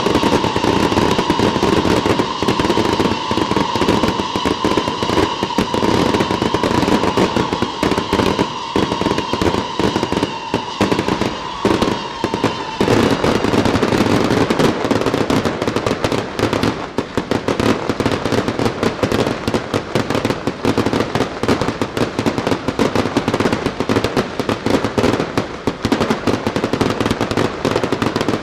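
Aerial fireworks display: a dense, continuous barrage of rapid bangs and crackling. A steady high whistle runs under it for the first dozen seconds and cuts off suddenly about halfway through.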